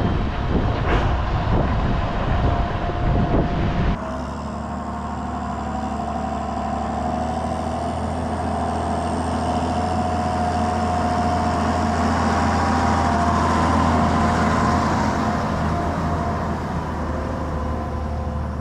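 Tractor with a loaded manure spreader running over rough ground, with clattering and bumping. After about four seconds it gives way to a steady farm tractor engine drone with a higher whine, growing slightly louder in the middle.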